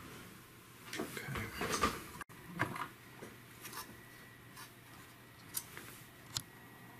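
Scattered light clicks and taps, with a brief rustle about a second in: a circuit board and small tools being handled on a work surface.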